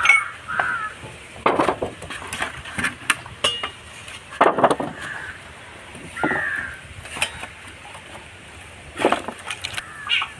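Metal cooking utensils clinking and knocking against a pot, about six separate strikes spaced unevenly.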